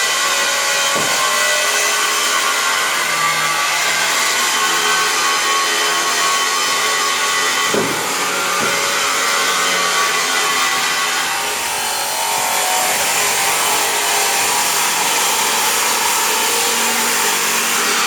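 Steady machine noise with a hiss reaching high up and faint humming tones, running on without a break; a couple of soft knocks come about a second in and again near eight seconds.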